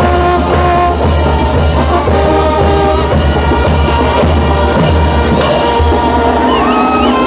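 Mexican brass band playing a chinelo dance tune: held brass notes carry the melody over a steady drum and cymbal beat of about two strokes a second.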